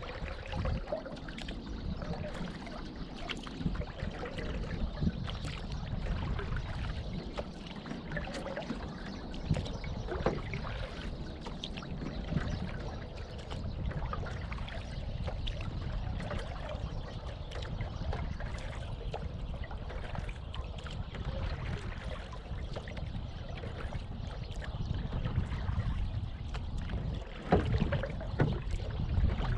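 Water trickling and splashing around a canoe as it is paddled across a calm lake, with scattered small splashes and a steady low rumble underneath.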